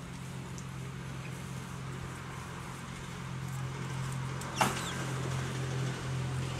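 A steady low engine hum that slowly grows louder, with one short sharp click about four and a half seconds in.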